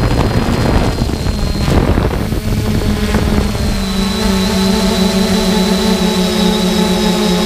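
3DR Solo quadcopter's motors and propellers in flight, picked up on the drone itself: a rushing of wind and prop wash that settles, about three and a half seconds in, into a steady hum made of several pitches with a faint high whine above it.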